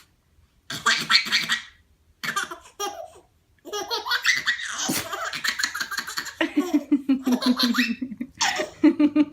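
A small child laughing hard in repeated bursts of belly laughter. There is a short sharp sound about five seconds in.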